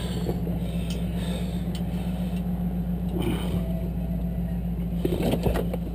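Engine idling steadily with a low, even drone.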